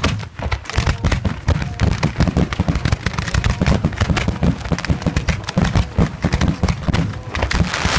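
Professional aerial fireworks shells bursting in a rapid, nearly continuous barrage of sharp bangs, the dense volley of a display's finale.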